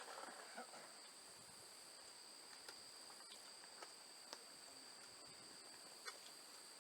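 Faint steady insect chorus of two constant high-pitched tones, with a few faint, scattered clicks.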